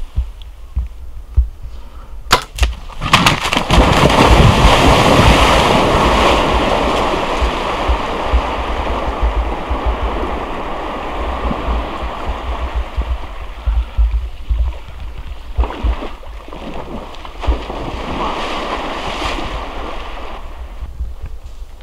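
A sharp crack about two seconds in, then a bull moose crashing and splashing through shallow water, loudest early and slowly fading. The bull has been hit by an arrow and is running out into a slough.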